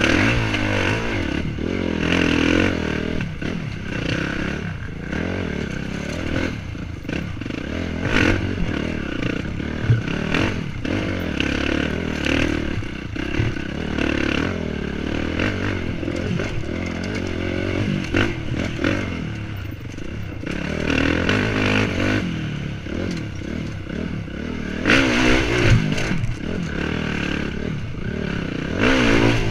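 Dirt bike engine revving up and down as the throttle is worked over rough ground, with rocks and stones clattering and scraping under the wheels and short knocks against the bike.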